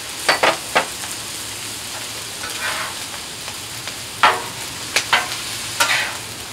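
Fried rice with crushed pineapple sizzling on a Blackstone flat-top griddle while a metal bench scraper and spatula chop and scrape through it, the steel blades striking the griddle plate in sharp clacks: three quick ones in the first second, then several more between about four and six seconds in.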